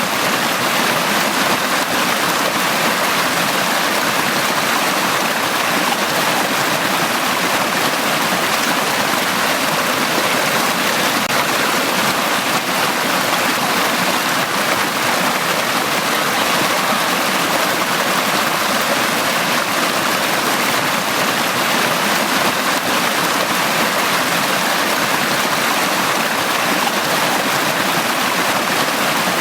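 Valley stream water flowing steadily, an even, unbroken sound with no distinct splashes or changes.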